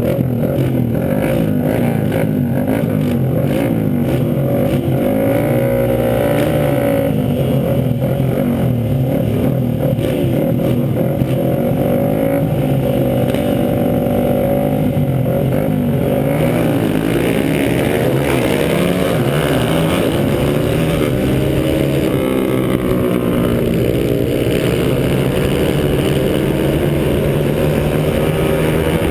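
Small air-cooled four-stroke single-cylinder dirt bike engine, a Honda CRF100 with a 120 big-bore kit, revving hard with the helmet-mounted microphone close to it. Other pit bikes run alongside. The engine note rises and falls in pitch as the throttle and gears change.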